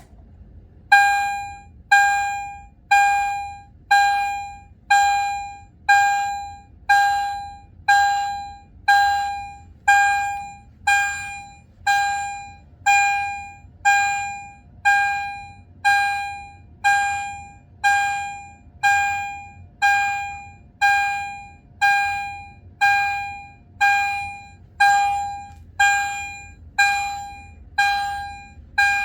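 EST Edwards Genesis-series fire alarm chime sounding its electronic chime tone through a small speaker disc: a single bell-like tone repeated about once a second, each strike fading away before the next.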